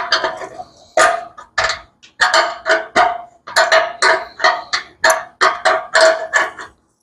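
Hand wrench clinking against the steel fuel line fitting as it is worked tight: a run of sharp metallic strikes, roughly two a second, each ringing briefly at the same pitch.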